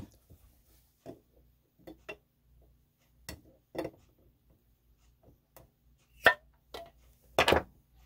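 Metal lid of a sealed glass canning jar being pried off with an opener: scattered small clicks and scrapes of metal on the jar, a sharp click a little past six seconds, and a louder, longer clatter near the end as the lid comes free.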